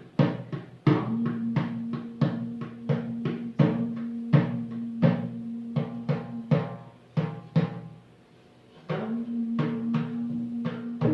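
Drumbeats about two to three a second over a steady sustained drone note, dropping out briefly about eight seconds in and then resuming.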